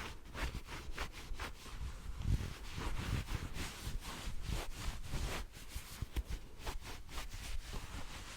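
Hands rubbing and swishing close to the microphone in quick strokes, a few per second, with occasional soft low thumps.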